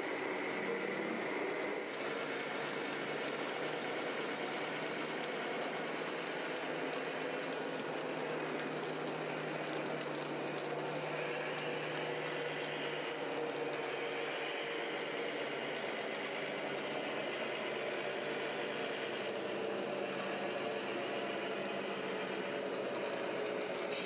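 Radio-controlled model trucks running: a steady mechanical hum from small motors and gearing, with whining tones that rise and fall in pitch as the models speed up and slow down.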